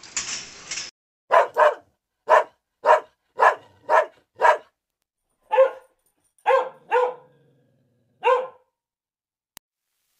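A Weimaraner barking about eleven times, short separate barks coming singly and in quick pairs, after about a second of hiss-like noise at the start.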